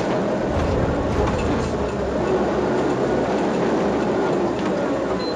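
Dakar rally race truck heard from inside its cab while driving over a rough desert track: a loud, steady rumble of the engine and drivetrain mixed with the rattle and clatter of the cab.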